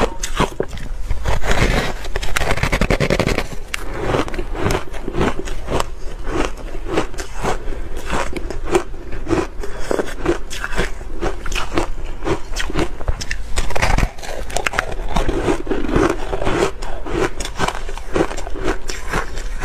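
Bar ice dusted with matcha powder being bitten and chewed, picked up close by a clip-on microphone: a dense run of sharp, irregular crunches and cracks as the ice breaks between the teeth.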